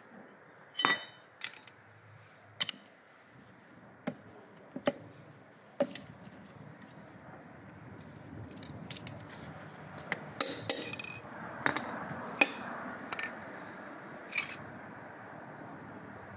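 Sharp metallic clinks and knocks, about fifteen in all and scattered irregularly, as connecting rods and bearing caps are moved by hand on the crankshaft of a stripped engine block.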